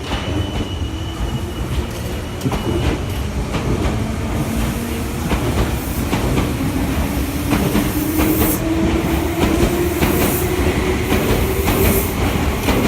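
Meitetsu 1200-series and 1800-series electric train pulling away from a station platform. The motor whine rises steadily in pitch as it gathers speed, and the wheels click over the rail joints.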